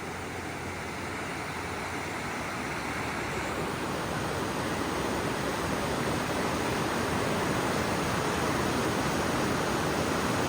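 Steady rushing of fast-flowing water, an even hiss that builds slightly over the first few seconds and then holds.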